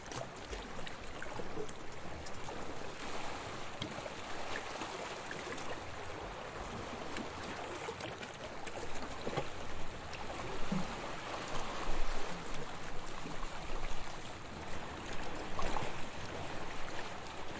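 Sea waves washing and lapping in a continuous wash of water with small splashes and fizzing, swelling into louder surges in the second half.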